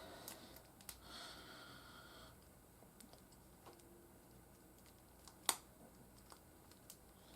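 Small plastic clicks and taps of an action figure and its accessory guns being handled, as guns are worked into the figure's hands. One sharper click about five and a half seconds in.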